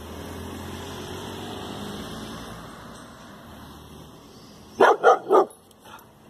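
A young brindle lurcher barks three times in quick succession about five seconds in: startled alarm barks at something unfamiliar.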